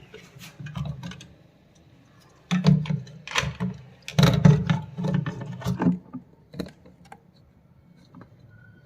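Clicks, knocks and rattles of plastic flush-mechanism parts from a concealed cistern being handled and fitted together. They come in two busy clusters, about two and a half seconds in and again about four seconds in, with a few lone clicks after.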